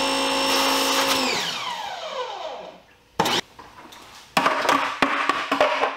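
Active VE52 electric pressure washer motor running steadily, then winding down with a falling pitch from about a second in, as it stops once the spray gun is let off. A sharp knock follows, then a loud, rough, rattling stretch near the end.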